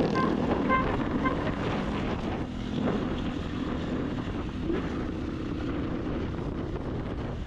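Motorcycle running on the move, with steady wind noise on the microphone.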